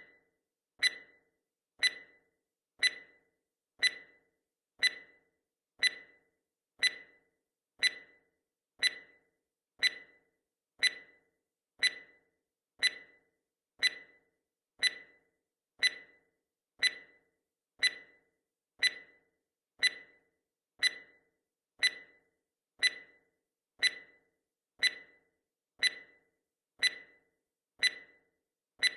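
Countdown timer sound effect: a short, sharp tick once a second, each dying away quickly, marking the seconds.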